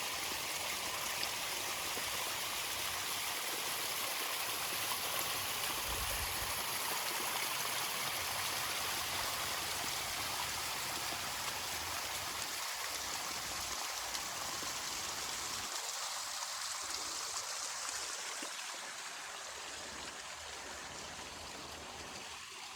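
A rushing stream: steady water noise that eases slightly near the end.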